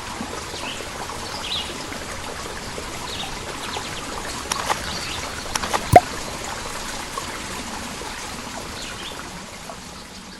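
Steady trickling water with faint bird chirps, a few light clicks and one sharp click about six seconds in; the sound starts to fade near the end.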